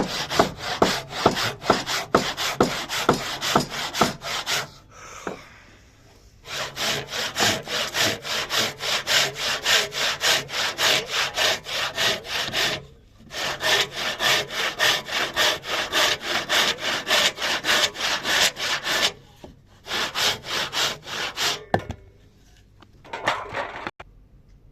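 Hand saw cutting through wood in quick, even back-and-forth strokes, about three a second, in runs broken by a few short pauses.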